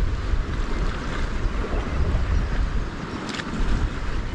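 Wind buffeting the microphone in a low rumble, over the wash of sea against rocky shore.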